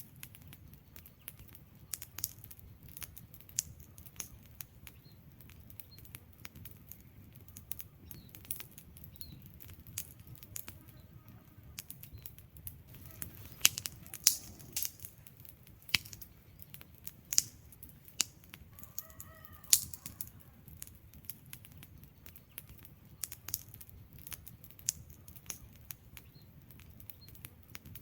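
Wood fire crackling: sharp, irregular snaps and pops from burning logs over a low steady rumble of the flames, the loudest pops coming in a cluster around the middle.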